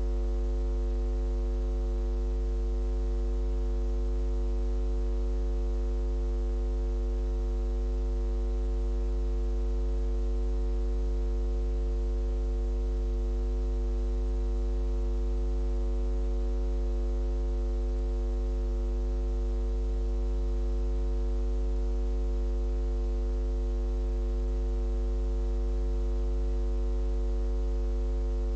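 Steady electrical mains hum with a stack of even overtones over a light hiss. Nothing else sounds.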